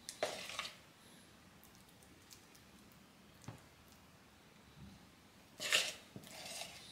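Metal spoon scooping egg-and-mayonnaise sandwich filling and spreading it onto bread: a short burst of spoon-and-filling noise just after the start and another near the end, with a light tap midway.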